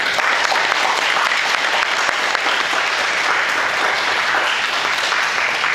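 Applause from a group of onlookers, starting suddenly and continuing steadily with dense, rapid clapping.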